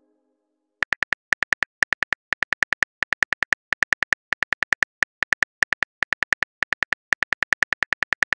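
Phone on-screen keyboard key-click sounds as a text message is typed: a rapid, even run of identical short clicks, about six or seven a second, starting about a second in.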